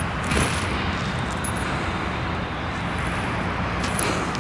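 Steady outdoor background rumble and hiss, typical of distant road traffic, with no distinct event standing out.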